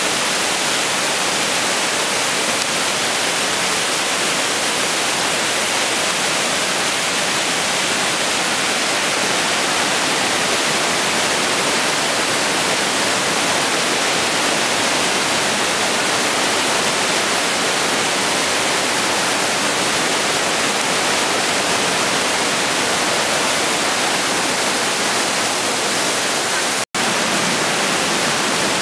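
Mountain torrent rushing over rapids and small falls in a narrow rock gorge: a loud, steady roar of white water. It cuts out for a split second near the end.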